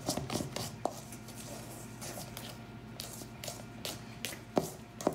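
A spoon stirring thick brownie batter in a stainless steel mixing bowl: irregular scraping with small clicks, and two sharper knocks of the spoon against the bowl near the end.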